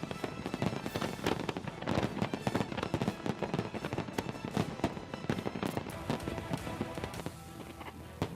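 Aerial fireworks display going off in a rapid, dense run of bangs and crackles, several per second, with music playing underneath.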